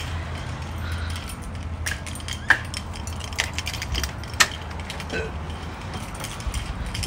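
Handling noise from a handheld camera carried while walking out through a house door, with scattered clicks and knocks. The two loudest are sharp clicks about two and a half and four and a half seconds in, as the door is opened and shut.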